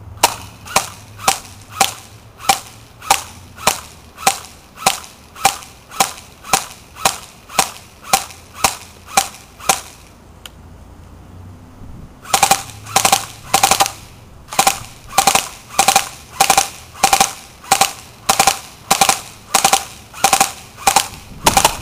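Battery-powered Classic Army MP5A2 airsoft electric gun firing at a cell phone: single shots at about two a second, a pause of about two seconds, then a short rapid full-auto burst, then single shots again. Each shot carries the crack of the gun with the BB striking the phone.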